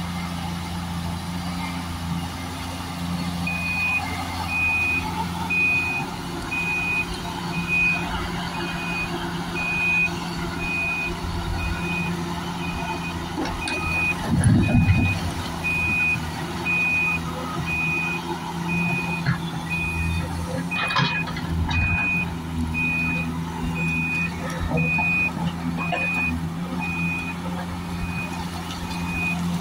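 Heavy diesel machinery, the Cat 345 GC excavator at work, running steadily, with a backup alarm that starts beeping a few seconds in at an even pace of about one beep every three-quarters of a second. A heavy thump comes about halfway through, and a sharp clatter about two-thirds of the way.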